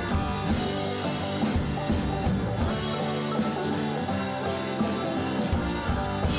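Background rock music with guitar and a drum kit keeping a steady beat.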